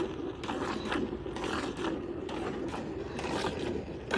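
Cow being milked by hand: rhythmic squirts of milk hissing into a pail, about two to three strokes a second.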